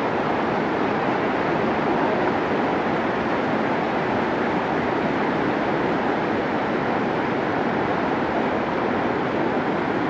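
Whitewater rapids of a mountain river rushing over boulders: a loud, steady, unbroken rush of water.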